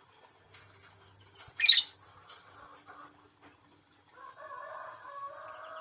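Lovebird giving a single sharp, shrill call about a second and a half in. About four seconds in, a steady sound of several held tones starts and carries on.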